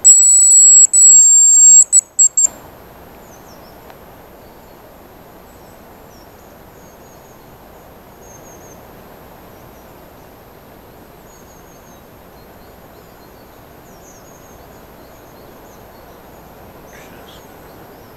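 Hazel grouse decoy whistle blown close to the microphone: two long, thin, high whistles followed by a few short broken notes, imitating a hazel grouse's song. Then quiet forest background with faint, high, distant bird chirps.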